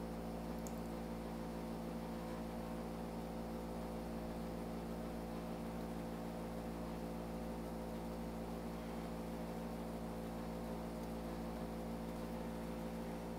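Steady electrical hum made of several low tones, with a faint even hiss under it: the room tone of the recording.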